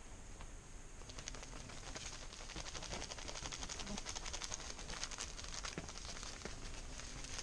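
Faint crinkling of a packet of salt being handled and opened over the pan, a dense run of fine crackling clicks that starts about a second in.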